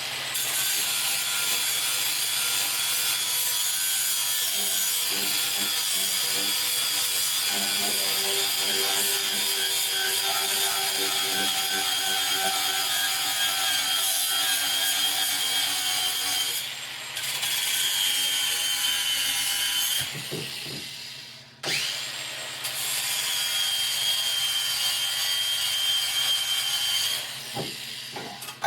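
Handheld power tool scouring rust and corrosion off a metal battery hold-down: a steady high motor whine under a rough scraping noise. It eases off briefly a little past halfway, stops for about two seconds at the two-thirds mark, then starts again and runs until just before the end.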